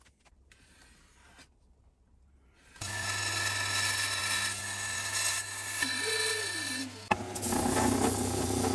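An electric power tool working wood, starting about three seconds in and running steadily with a low hum and a rasping noise, with a brief break about seven seconds in.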